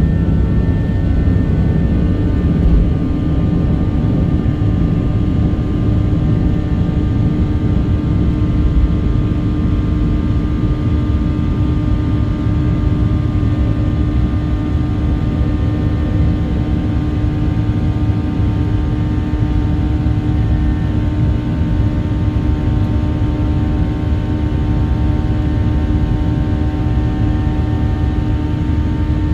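Boeing 737-900's CFM56-7B jet engines at takeoff thrust, heard inside the cabin: a loud, steady rumble with a steady hum and several fainter higher tones, through the end of the takeoff roll, liftoff and the climb-out.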